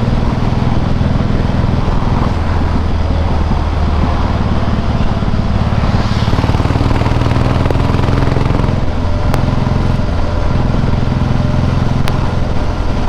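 Harley-Davidson Softail Heritage V-twin running through Screamin' Eagle exhausts while riding in traffic, a steady engine note that eases briefly about nine seconds in.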